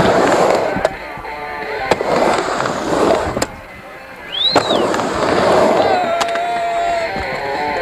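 Skateboard riding back and forth on a ramp: the wheels' rolling noise swells and fades about every second and a half, with sharp clacks about five times as the board turns or strikes the ramp. Music plays underneath.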